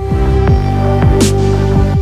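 Electronic background music: deep bass notes sliding down in pitch over a held synth note, with a crash-like hit a little past halfway.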